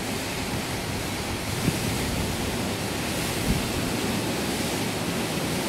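A steady rush of wind and water noise. Twice, low gusts thump against the microphone.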